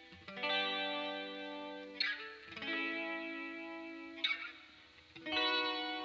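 Electric guitar with a chorus effect playing a quiet passage of strummed chords, each left to ring and fade, a new chord about every one to two seconds.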